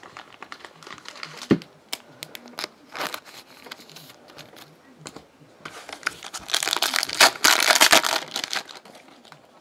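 Foil wrapper of a football trading card pack being torn open and crinkled by hand, loudest in a dense crackling stretch from about six to nine seconds in. Scattered small handling clicks come before it, with one sharp knock about a second and a half in.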